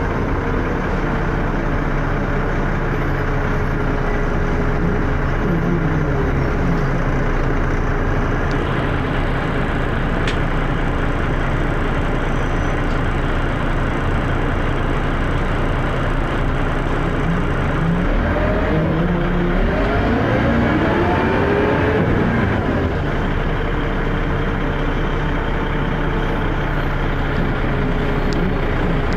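Dennis Arrow double-decker bus's diesel engine running under way, heard from on board. It is loud and steady, with the pitch rising and falling twice, about six seconds in and again from about eighteen to twenty-two seconds in, as it accelerates and the ZF automatic gearbox changes gear.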